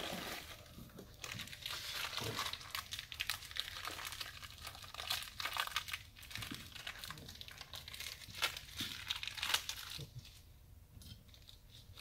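Small plastic parts bag crinkling as gloved hands open it and handle the parts inside, a dense run of fine crackling that eases off near the end.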